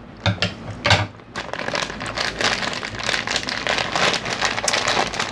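Clear plastic candy packet crinkling and rustling as it is handled, with two sharper crackles in the first second.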